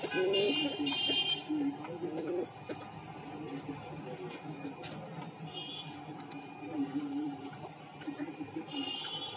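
Fantail pigeons cooing in short low calls, a few near the start and more toward the end, over a thin, high squeaking repeated about twice a second that fits squabs begging while an adult feeds them.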